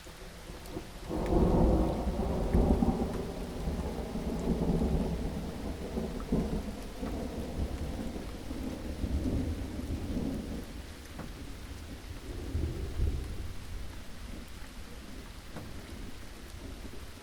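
Steady rain with a roll of thunder that breaks in about a second in, rumbles low for several seconds and fades, followed by a weaker rumble a little later.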